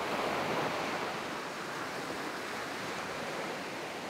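Small surf breaking and washing up a sandy beach: a steady rush of waves, a little louder in the first second.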